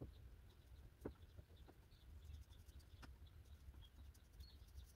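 Near silence: a low steady rumble with a few faint clicks, about one and three seconds in, and scattered faint high chirps.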